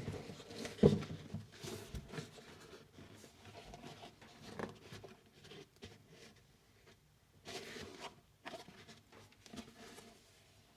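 Rustling, scraping and light tapping from the shoes and their packaging being handled, with one louder knock about a second in.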